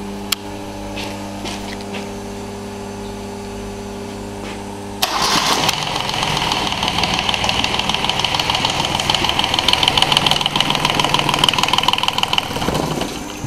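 Volvo Penta MD2020 three-cylinder marine diesel running at idle on a test stand. About five seconds in it turns suddenly louder and rougher, a fast diesel clatter with the hiss and splash of cooling water spurting from the wet exhaust outlet, then drops back to the steadier idle near the end.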